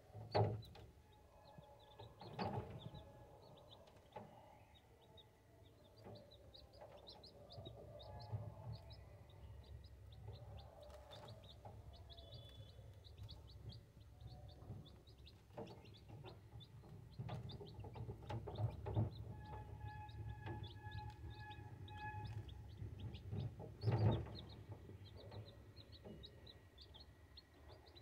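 Two-day-old chicks peeping continuously, a stream of short high chirps. A few sharp knocks stand out, the loudest near the start and about 24 seconds in, over a low steady rumble.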